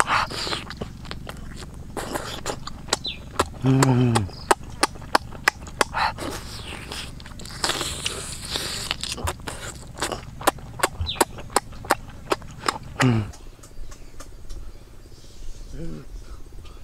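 Close-up eating of a cooked octopus tentacle: many sharp wet lip-smacking and chewing clicks, with sucking noises, broken by a couple of low hums that fall in pitch. The eating sounds stop abruptly about 13 seconds in, leaving a quieter outdoor background with a short voice sound near the end.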